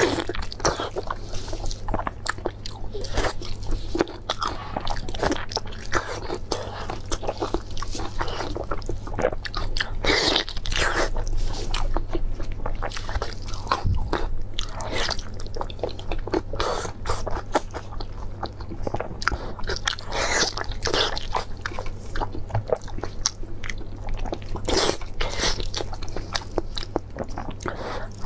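Close-up ASMR biting and chewing of sauce-glazed beef on the bone, one bite after another with short pauses between.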